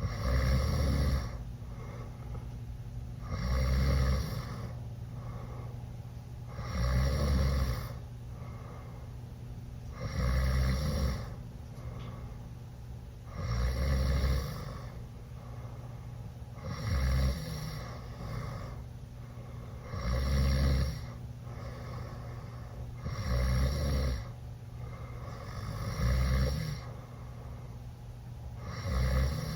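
Teenage boy snoring loudly through an open mouth after drinking: a rasping snore about a second long roughly every three seconds, one per breath, with quieter breathing between.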